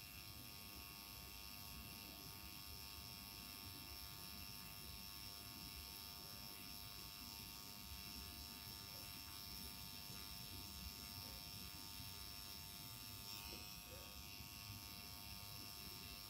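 Faint, steady buzz of a permanent-makeup machine pen running as its needle tattoos pigment into the lash line.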